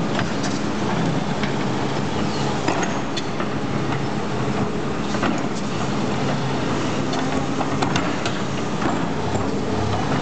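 Doosan crawler excavator's diesel engine running steadily under load while its bucket digs into soil, with scattered clicks and scrapes from the bucket and the dirt.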